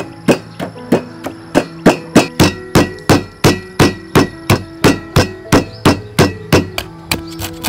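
Pestle pounding garlic and galangal in a stone mortar, evenly spaced dull strikes at about three a second.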